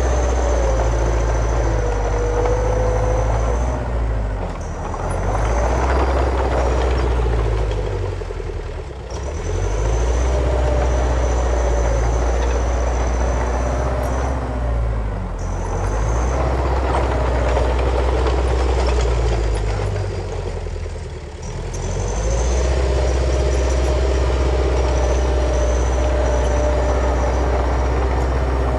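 Heavy diesel construction machine engine running loud and steady, easing off briefly four times and picking back up, with a thin high whine running along with it.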